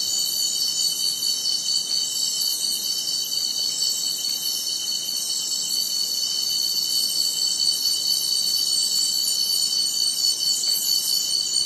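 Steady chorus of insects: several high, unbroken tones over a faint hiss.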